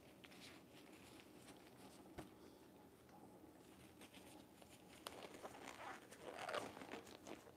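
Faint rattling and clicking of a turntable spinning a wet acrylic-pour canvas, with one sharp click about two seconds in and louder rustling near the end.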